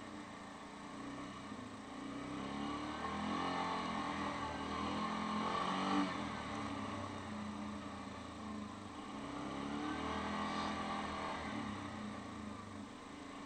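Yamaha Grizzly 550 ATV's single-cylinder engine pulling the quad along a muddy dirt track. The revs rise and fall with the throttle: louder about six seconds in, with a short thump there, easing off, then rising again near the end.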